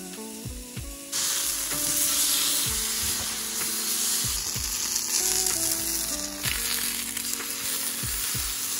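Steady sizzling hiss of food cooking on a stovetop, getting louder about a second in, with soft background music playing underneath.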